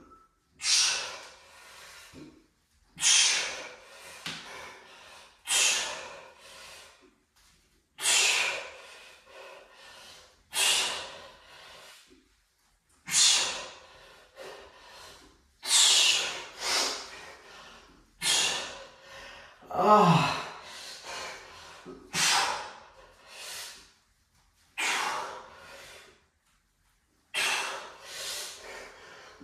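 A man breathing out hard in short, forceful breaths, one about every two and a half seconds, the exertion breaths of each rep of a kettlebell wood chop. About twenty seconds in, one breath carries a short strained grunt that falls in pitch.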